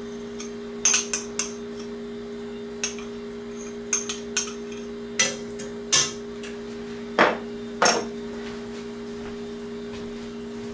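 A table knife clinks and scrapes against a small dish and a cast-iron skillet as butter is knocked off into the pan: about ten sharp clicks, the loudest in the second half. A steady electrical hum runs underneath.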